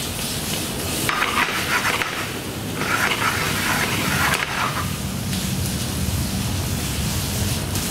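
Prawns frying in very hot olive oil in a sauté pan, a steady sizzle that grows louder for a second or so twice.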